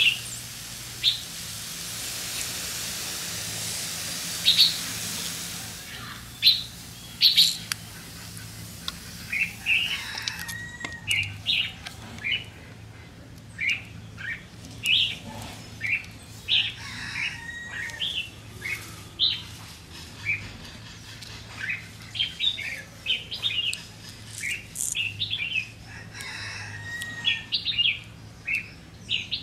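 Small birds chirping and tweeting in quick, scattered calls, thickest in the second half. A soft steady hiss sounds for the first several seconds.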